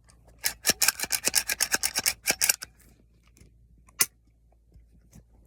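A rapid run of sharp clicking, rasping strokes lasting about two seconds, then a single sharp click about four seconds in: hard gear being handled.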